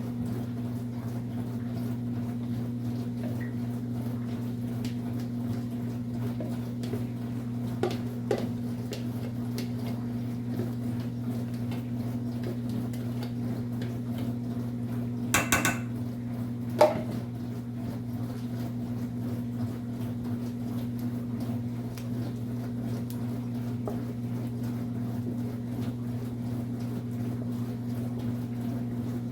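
Occasional clinks and knocks of dishes and utensils being handled, with a short clatter about halfway through and a single ringing clink just after it, over a steady low hum.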